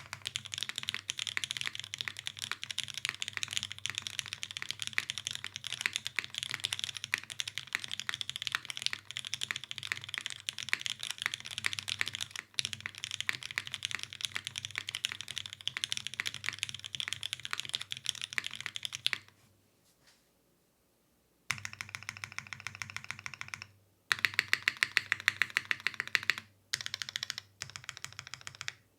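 Fast typing on a custom mechanical keyboard with lubed Gateron Oil King linear switches, an undampened aluminium plate and GMK keycaps. The keys clack steadily, stop for about two seconds about two-thirds of the way through, then start again in shorter runs.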